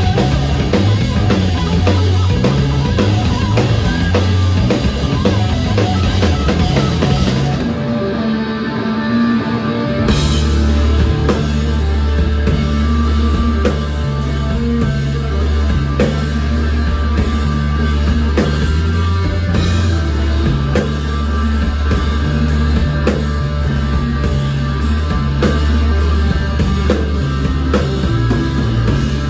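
Heavy psychedelic rock band playing live: Stratocaster-style electric guitar, bass guitar and a Ludwig drum kit. About eight seconds in, the deepest bass drops away for about two seconds, and it returns with a crash about ten seconds in.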